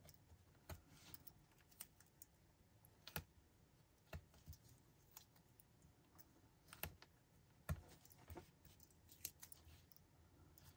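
Near silence with faint, scattered light taps and clicks as hands handle a torn piece of paper napkin on a craft cutting mat.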